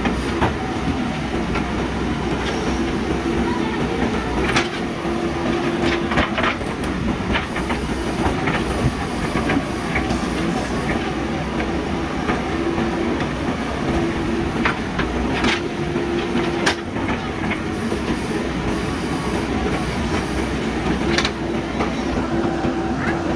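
JCB backhoe loader's diesel engine running steadily while digging, with a whine that comes and goes and a few sharp metal clanks from the working gear.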